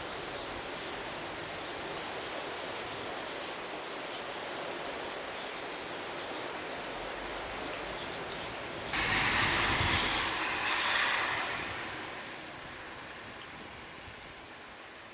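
Steady rain falling. About nine seconds in, a louder rushing hiss starts suddenly and fades away over a few seconds.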